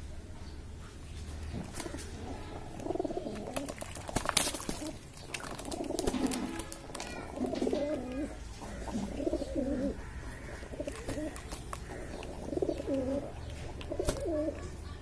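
Domestic pigeons cooing in repeated low, warbling bouts, with a few short splashes and a flap of wings near the end as they bathe in a basin of water.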